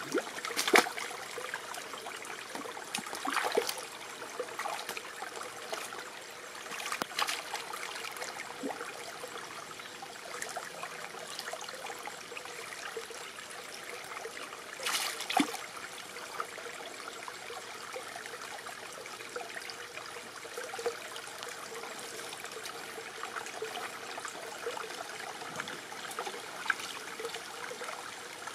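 Shallow stream trickling over rocks, with a few sharp splashes as hands and feet move in the water, the loudest about 15 seconds in.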